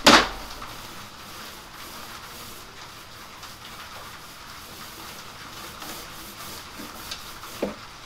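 Small paint roller rolling primer onto a bookcase panel: a steady soft rubbing hiss, after a short loud knock at the very start.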